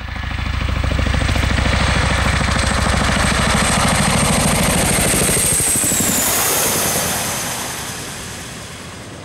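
Boeing CH-47 Chinook tandem-rotor helicopter making a low pass: a fast, steady rotor beat under the high whine of its turbine engines. The whine drops in pitch about six seconds in as it goes by, and the sound then fades.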